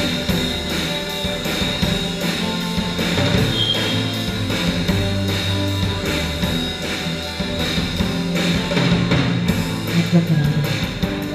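Live rock band playing an instrumental passage on drum kit and electric guitars, with a steady beat.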